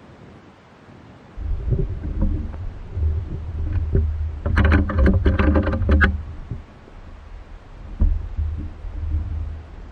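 Wind buffeting the microphone in gusts, a loud low rumble that starts suddenly just over a second in. In the middle, a pitched buzzing sound pulses for about a second and a half, and there is one sharp thump near the end.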